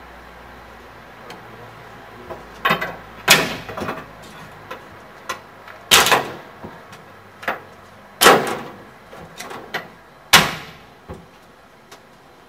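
A series of loud knocks and clatters, about one every two seconds, each with a short fading tail, with lighter clicks between them: handling work on a steam locomotive being readied for its warming-up.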